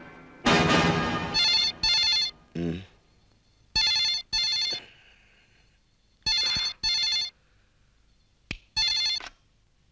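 Landline telephone ringing in double rings, three pairs and then a single ring, after a brief loud sound at the start. A short click comes just before the last ring as the handset is reached for.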